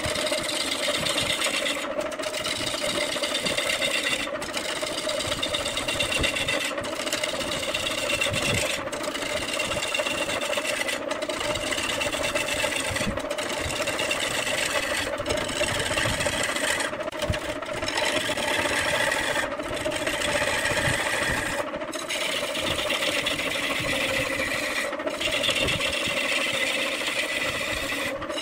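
Wood lathe running with a turning tool cutting into the spinning wood: a steady scraping hiss over the machine's hum, the cutting noise breaking off briefly about every two seconds.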